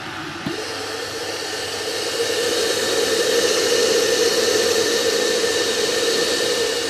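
Stainless steel electric kettle heating water: a steady rushing hiss that builds louder over the first few seconds, then holds.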